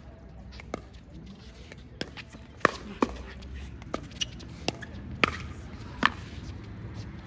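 Pickleball rally: paddles striking the plastic ball and the ball bouncing on the hard court, about nine sharp pops at irregular intervals, coming quickest and loudest from a little under 3 s to just after 6 s.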